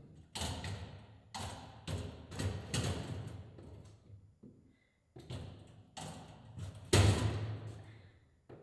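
A wheeled hand cart loaded with a cotton candy machine thumping down concrete stairs one step at a time, each knock echoing in the tiled stairwell. The knocks come irregularly, with a short pause in the middle and the heaviest thump about seven seconds in.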